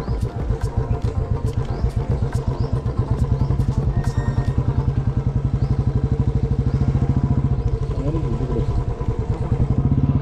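Motorcycle engine running while the bike is ridden, with a rapid, even pulsing beat.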